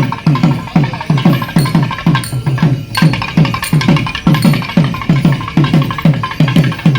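Drums beaten in a fast, steady rhythm of about three to four strokes a second, the festival percussion ensemble playing without pause.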